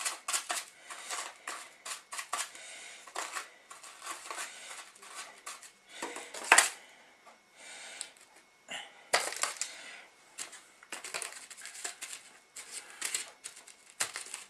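Crushed tortilla chips rattling and crunching in a plastic tub as chicken fillets are pressed into them, with foil trays crinkling and clattering on the table. Irregular small clicks and rustles, with one sharper knock about six and a half seconds in.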